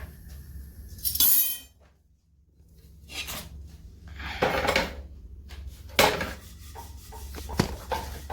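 Kitchen cookware and utensils knocking, clinking and scraping while rotis are made, with a short loud hiss about a second in and a sharp knock about six seconds in.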